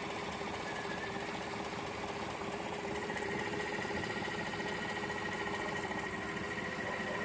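Chevrolet Silverado's L83 5.3-litre V8 running, with a rapid, even tapping like a woodpecker pecking over the engine sound; a faint thin whine joins about three seconds in.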